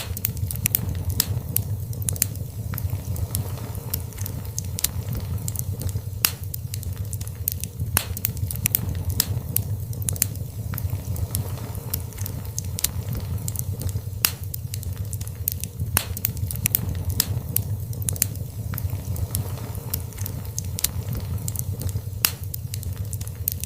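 Fire crackling in a fireplace: frequent, irregular sharp pops and snaps over a steady low rumble of the flames.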